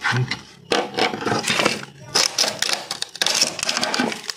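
Hand-pushed Protec manual HPL edge trimmer scraping along the edge of a high-pressure laminate sheet and shaving off the overhang, in about four rough passes of a second or so each. The cut comes out poorly, which the user puts down to a blade that is not sharp enough.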